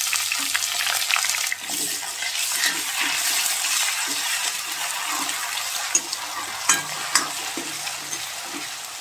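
Onions and ginger-garlic paste sizzling in hot ghee in a metal kadhai, stirred with a steel ladle that scrapes around the pan, with a few sharp knocks of the ladle against the metal about six to seven seconds in.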